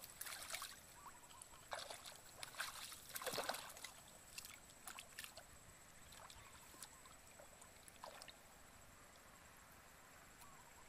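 Hands splashing and sloshing in shallow muddy paddy water while groping in the mud for fish. The splashes come thick in the first few seconds, then only now and then, over a faint steady high-pitched tone.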